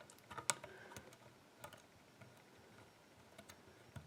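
Faint, scattered metallic clicks of a flag pick working the spool pins inside an AGB dimple lock cylinder. The loudest click comes about half a second in, with a few lighter ticks after it.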